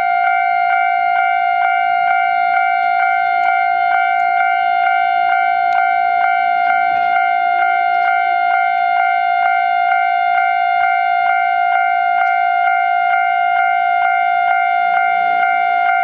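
Japanese level-crossing alarm: the electronic warning bell dinging steadily, nearly three dings a second, signalling an approaching train.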